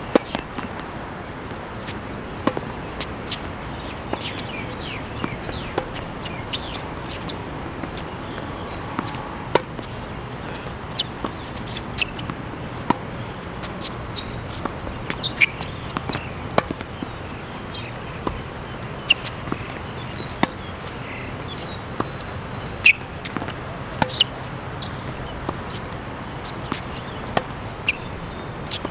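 Tennis ball being struck by rackets and bouncing on a hard court: sharp, irregularly spaced pops through a rally, over a steady background hiss.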